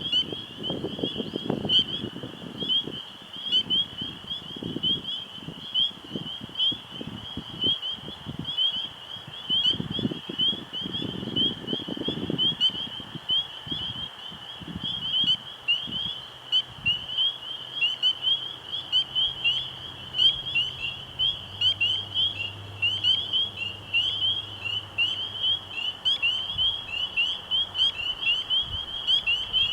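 A chorus of spring peepers: many small frogs giving short, high peeps in rapid overlapping succession without a break. Gusts of wind rumble on the microphone during the first half.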